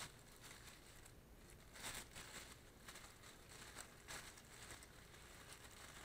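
Faint rustling and crinkling of plastic packaging in a few short spells as the parts of a new computer monitor are unwrapped.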